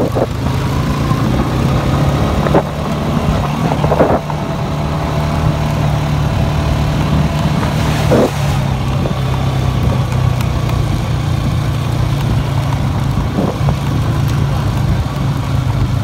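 ATV (quad bike) engine running steadily under way across rough ground, with a few sharp knocks along the way.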